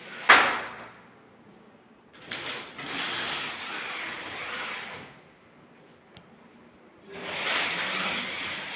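A pleated mosquito net screen being slid along its window track: a sharp knock just after the start, then two rushing, scraping slides of a few seconds each, one in the first half and one near the end.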